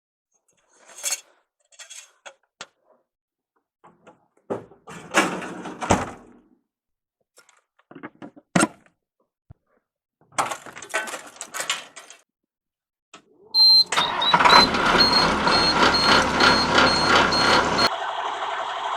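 A series of knocks and clicks, then about 14 s in a truck engine starts and runs, with a high repeating warning chime over it. A few seconds later the engine settles to a steadier, quieter idle.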